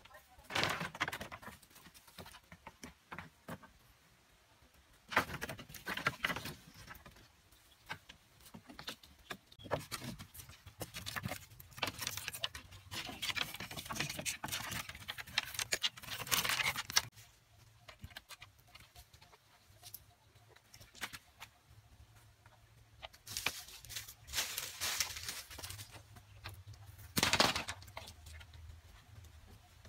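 Split bamboo strips and thin wooden poles rustling, scraping and clattering in irregular bursts as they are handled and worked into a pole frame by hand, with a louder clatter near the end.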